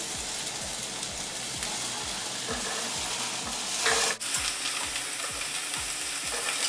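Chopped onions frying in olive oil in a pan, sizzling with a steady hiss and faint ticks. About four seconds in there is a brief louder clatter as dry macaroni is poured into a pot of boiling water.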